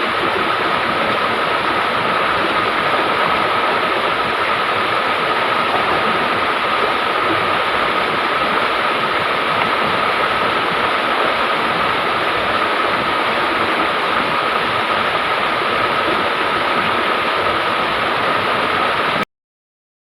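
River water rushing steadily, a constant even wash with a steady high tone running through it; it cuts off suddenly near the end.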